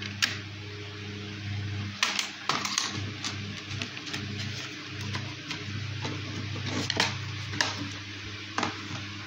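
A plastic DVD keep case and disc being handled: sharp plastic clicks and taps, a cluster about two seconds in and a few more around seven seconds and near the end, over a steady low hum.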